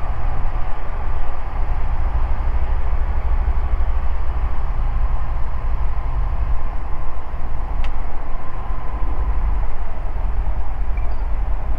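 Ikarus C42B microlight's engine and propeller with the rush of air, heard from inside the cockpit on final approach: a steady drone with a strong low rumble.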